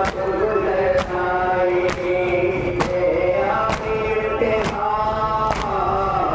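A noha, a Shia mourning chant, sung by men and led by a reciter on an amplified microphone. The mourners' hands strike their chests together in a steady matam beat, a little more than once a second, in time with the chant.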